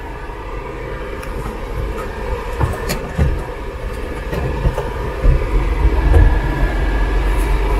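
A Suzuki Multicab's 660 cc three-cylinder engine pulling the small automatic truck along at low speed, heard from inside the cab as a steady low rumble with tyre noise. It grows louder a few seconds in, with a few scattered ticks and knocks.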